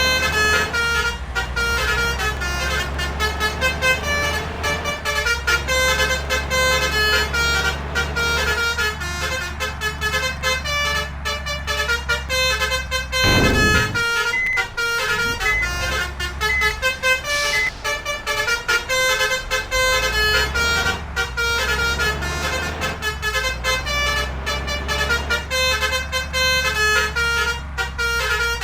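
Bus basuri multi-tone horn ('telolet' horn) playing a rapid, continuous melody of short notes, over the steady low rumble of the bus engine. A brief deep whoosh passes about halfway through.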